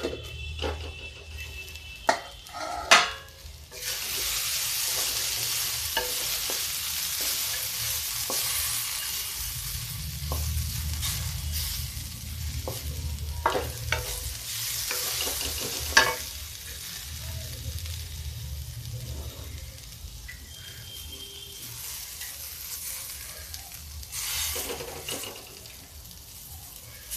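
A few metal knocks of a steel plate being handled on the pan. About four seconds in comes a steady sizzle of carrot slices and green peas frying dry in an aluminium kadhai, with no water added, while a wooden spatula stirs and scrapes them with occasional clicks.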